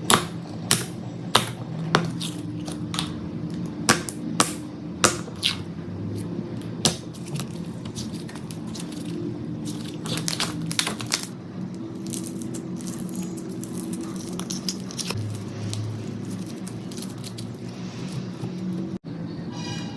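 Slime being handled and pressed, giving sharp crackling pops and clicks, thickest in the first several seconds and again about ten seconds in, with softer squishing between.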